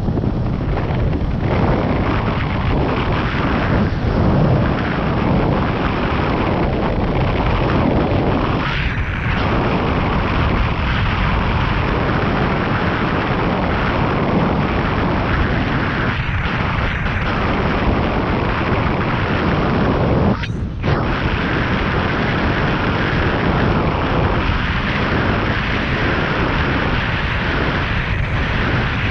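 Wind buffeting the camera microphone while kite foiling: a loud, steady, deep rumble that briefly drops out about twenty seconds in.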